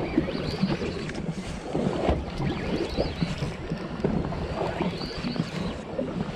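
Wind on the microphone and water slapping against the hull of a small fishing boat at sea, an uneven rushing and sloshing.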